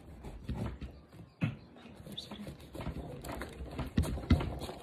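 A knife cutting into the thick, spiky rind of a jackfruit: irregular crunching and scraping with a few sharp knocks, two of them close together near the end.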